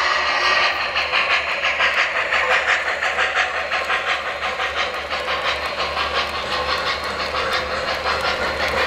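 O-scale model Norfolk & Western J-class 4-8-4 steam locomotive's onboard sound system chuffing at a steady rhythm, with a steam hiss at the start, as the train runs past. The passenger cars' wheels click along the track.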